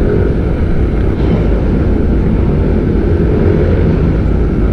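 Wind rushing steadily over the microphone while a motorcycle cruises at road speed, its engine running underneath.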